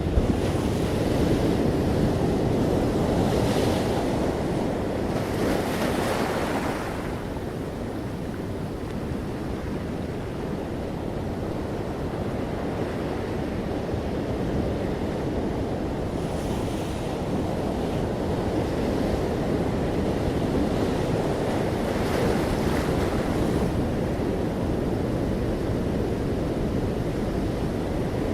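Ocean waves breaking gently on a shore: a steady rush of surf that swells and ebbs, with hissing surges as a wave washes in about a second, three and a half seconds and six seconds in, and again around seventeen and twenty-two seconds.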